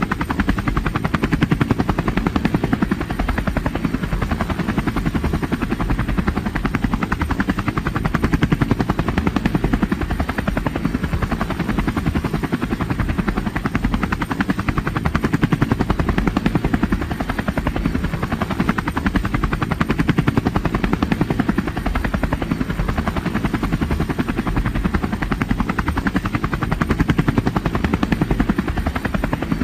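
Helicopter rotor chopping at a steady, rapid beat.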